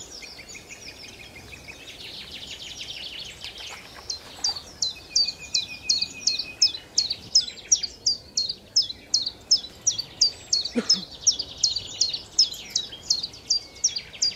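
Bird song: a buzzy high trill, then from about four seconds in a fast, even series of loud, high chirps, each sweeping downward, about three a second.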